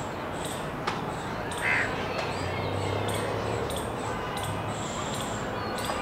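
Wild birds calling in strong wind. A single harsh caw comes a little under two seconds in, and a small bird gives short, high chirps about twice a second throughout.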